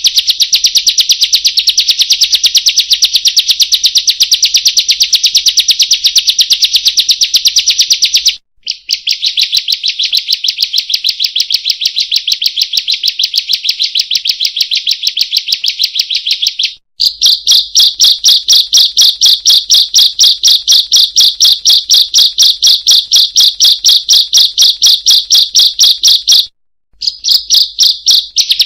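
Ciblek (bar-winged prinia) song played as a lure recording for tutoring caged birds: long runs of rapid, sharp, high-pitched repeated chirps. The song breaks off briefly about a third of the way in, about two-thirds in, and near the end; the notes after the second break come more slowly, about four a second.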